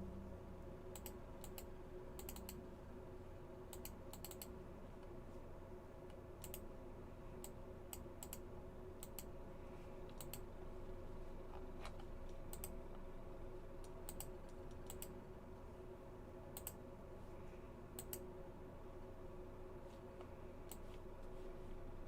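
Faint, irregular typing on a computer keyboard: scattered key clicks, some single and some in quick runs of two or three, over a steady low hum.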